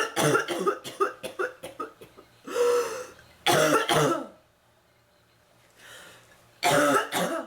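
A woman's coughing fit. A run of quick coughs comes in the first two seconds, then three single, louder coughs spaced out over the rest, the last near the end. She says the cough is from bronchitis.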